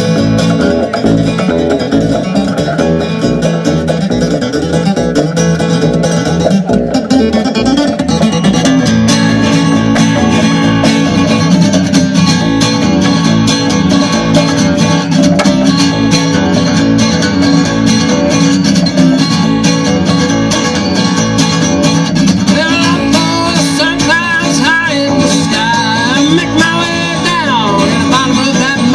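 Live acoustic guitar and plucked upright double bass playing a tune with a steady beat; a man's singing voice comes in near the end.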